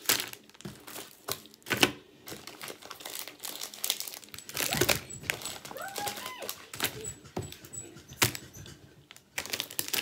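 Plastic snack wrappers crinkling and rustling as packets are handled and shuffled around inside a cardboard box, with irregular sharp crackles. A short gliding tone comes through about six seconds in.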